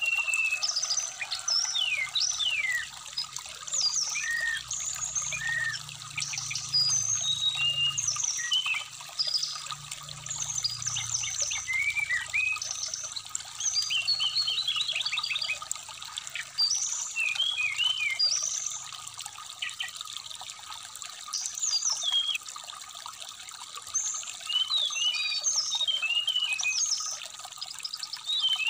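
Brown-chested jungle flycatcher singing a rapid, varied song of short sweeping whistled notes in dense phrases, over a steadily trickling shallow stream.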